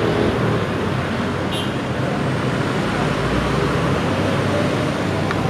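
Steady street traffic noise: the running engines of motorcycles and cars passing close by, with a brief high squeak about a second and a half in.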